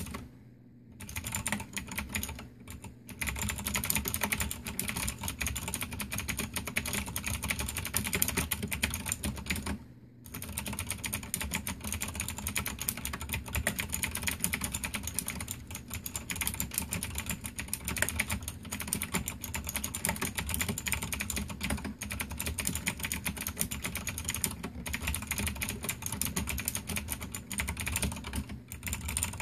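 Cherry G80-3497 keyboard with clicky Cherry MX Blue switches being typed on in a fast, continuous stream of keystrokes. There are short pauses near the start, at about three seconds in and at about ten seconds in.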